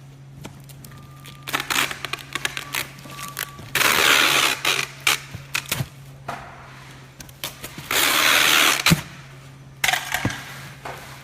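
Handling noises: clicks and scraping, with two longer rasping noise bursts of about a second each, over a steady low hum.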